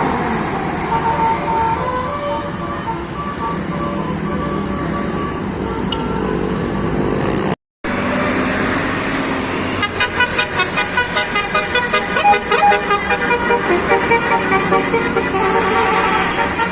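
Bus telolet Basuri multi-tone air horn playing its melody over a running bus engine. After a brief cut partway through, the horn plays a fast staccato run of short notes, several a second.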